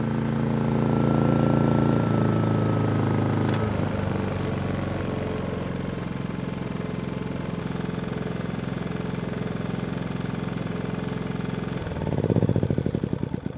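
MAXPEEDINGRODS MXR5500 inverter generator running steadily, its engine note easing down slightly a few seconds in. Near the end it swells briefly, then sputters and winds down as it is shut off.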